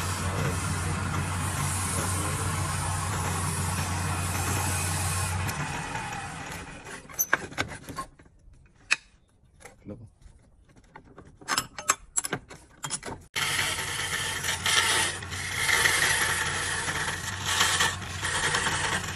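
Wood lathe motor running with a low hum while a handful of coarse fibre rubs against the spinning wooden vase. The motor stops about five seconds in, leaving a few seconds of scattered clicks and knocks. It starts again abruptly and a flat chisel scrapes and cuts the turning wood.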